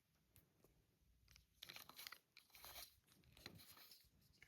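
Near silence, with faint rustling and light clicks starting about a second and a half in.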